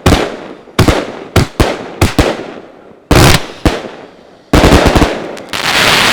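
Multi-shot fireworks cake ("Bermuda Triangle") firing, heard from right beside the box: sharp launch shots in an uneven series, each trailing off, with a rapid cluster of shots about four and a half seconds in. Near the end comes a dense burst of noise lasting about a second.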